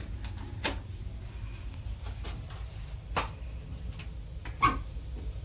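Steady low rumble inside an old railway carriage, broken by a few sharp metallic clicks and knocks. The first, just under a second in, comes as a hand works the compartment's metal door latch; the loudest comes about four and a half seconds in.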